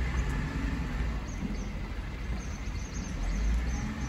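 Diesel engine of a flat-deck truck with a loader crane, running with a steady low rumble as the truck moves off, with small birds chirping faintly.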